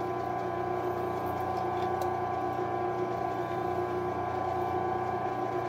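Grizzly G0602Z bench lathe running at a steady speed, a steady hum with a few whining tones, while a long 3/16-inch drill bit fed from the tailstock cuts easily into the spinning pin.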